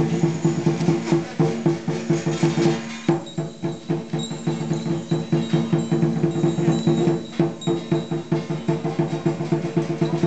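Lion dance percussion: a drum beaten in a fast, steady rhythm, with cymbals and gong ringing over it. The beat breaks briefly about three seconds in, then picks up again.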